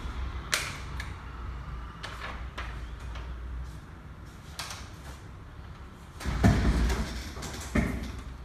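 Sheets of paper rustling and flicking as pages are turned. About six seconds in comes a louder clatter as a desk telephone handset is lifted, and a sharp knock follows near the end.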